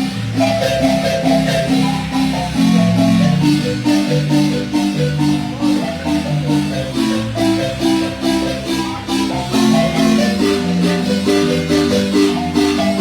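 Marimba music: a son played with quick, ringing mallet notes over a low bass line, at a steady, even rhythm.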